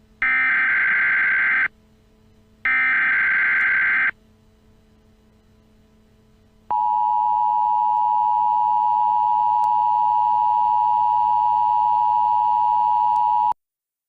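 Emergency Alert System broadcast tones: two buzzy data-header bursts about a second apart, then after a pause the steady two-tone attention signal, held about seven seconds and cutting off sharply. The tones announce an emergency alert message.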